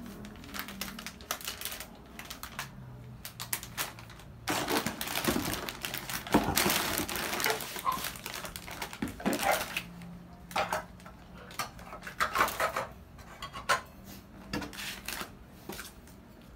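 Plastic product packets rustling and crinkling as they are handled in a cardboard box, with a denser stretch of crinkling about a third of the way in. Scattered light clicks and knocks come from items being picked up and set down.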